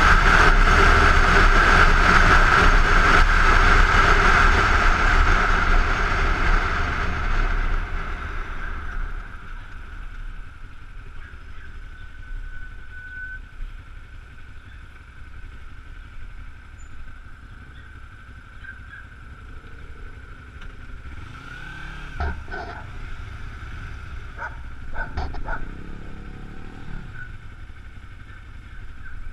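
Kawasaki Ninja 250 parallel-twin engine running at speed with heavy wind rush on a helmet-mounted camera. It then slows and settles to a quiet idle while stopped at a traffic light, with a few brief clatters near the end.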